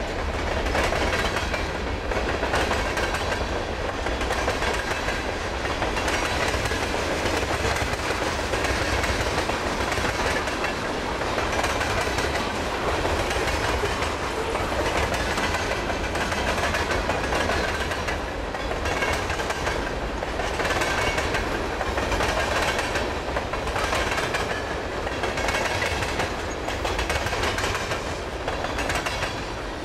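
Mixed freight train rolling past at steady speed: the continuous rumble and rattle of its cars' wheels on the rails, with a regular clack as wheelsets cross rail joints.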